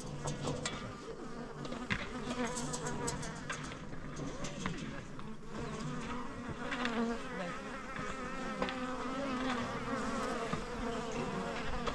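Insects buzzing close by with a wavering drone, over scattered light clicks and taps.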